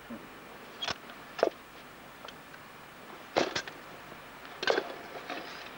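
A blackened tin baking can knocked down onto a wooden block several times, sharp single knocks with two close together, to loosen a freshly baked loaf of bread from the tin.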